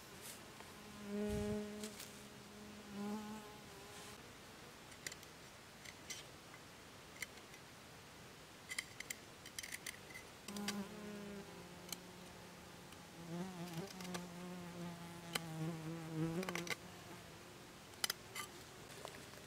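A flying insect buzzing close by in two spells, a short one and a longer one, its pitch wavering as it moves about. Scattered light clicks and taps come from a machete working on a thin green stick.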